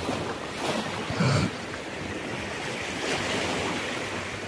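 Ocean surf washing steadily, with wind buffeting the microphone. A brief low sound stands out about a second in.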